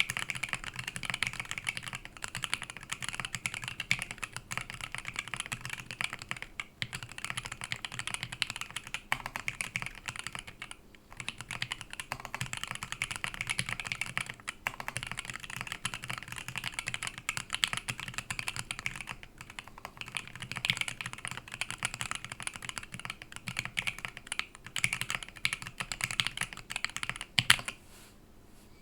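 Fast, continuous typing on an LZ Physix custom mechanical keyboard: lubed JWK Pinoko switches on a copper plate with Imsto dye-sub keycaps, clacking rapidly. There are a few brief pauses. The typing stops about a second before the end, on one louder keystroke.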